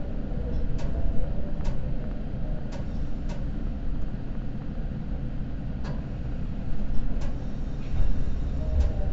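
Steady low rumble inside a Seibu Limited Express train carriage, with a sharp click about every second or so at uneven intervals.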